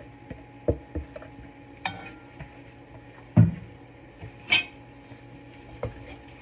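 Spoon stirring beans into taco meat in a pan, knocking and clinking against the pan several times, the two loudest knocks about three and a half and four and a half seconds in, over a faint sizzle.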